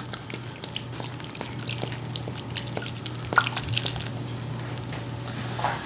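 Lager poured from a glass bottle into a slow cooker full of beans and stock, splashing and fizzing with many small crackling pops.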